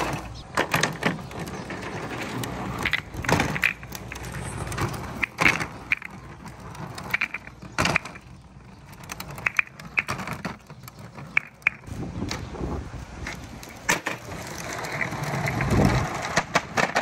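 Billiard balls rolling down a plastic rain gutter and a wooden slope, clacking against each other and the track in many sharp knocks. Near the end the rolling swells into a louder, denser rumble as many balls run down together.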